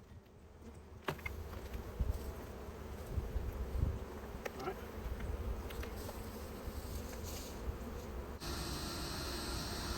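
Honeybees buzzing in numbers around their cut-open nest, with a few short knocks.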